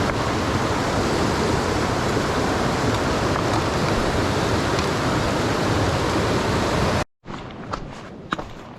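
Steady rush of a fast-flowing mountain river. About seven seconds in it cuts off abruptly, and quieter footsteps and clicks of stones being stepped on follow.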